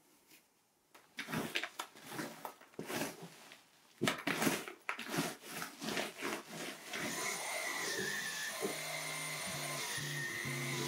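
Quick, irregular rubbing strokes of a handheld lint roller over sofa upholstery and a blanket. About seven seconds in, a cordless stick vacuum starts and runs steadily with a high whine.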